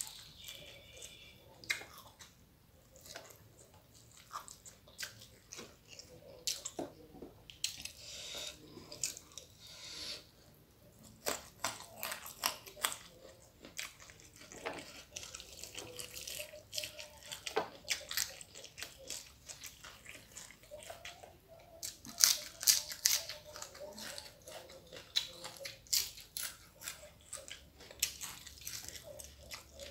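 Close-up eating sounds: chewing and crunching of rice with fried dried salted fish and raw greens, irregular wet clicks and crackles, with a louder run of crunches about 22 seconds in.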